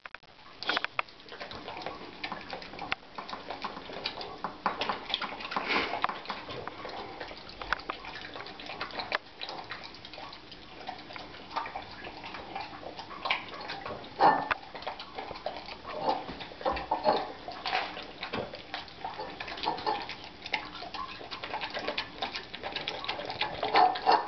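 A dog eating spaghetti and horse meat off a plate, fast: wet chewing and slurping with many irregular clicks, a few of them sharper and louder.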